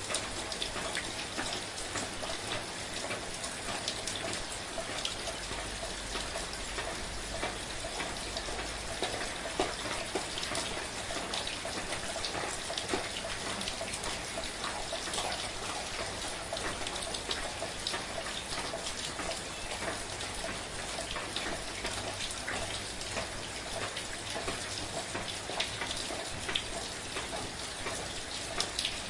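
Steady, gentle rain falling, with many small drops pattering on a surface.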